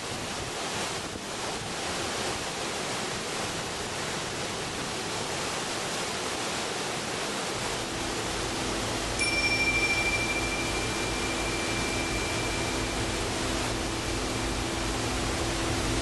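Waterfall rushing steadily. About halfway through a low steady drone comes in, and a moment later a high, bell-like ringing tone starts suddenly and slowly fades away.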